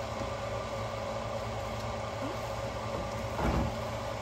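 Steady mechanical hum with a hiss, as from a running appliance motor or fan. A short low thump comes about three and a half seconds in.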